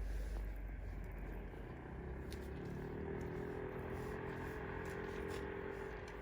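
A vehicle's engine humming steadily over a low rumble, the hum growing plainer about two seconds in and rising slightly in pitch.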